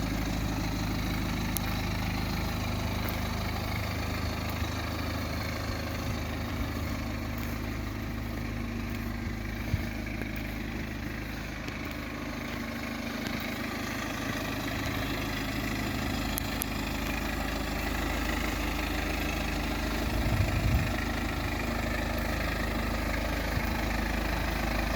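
A car engine idling steadily, a low, even hum with no change in speed.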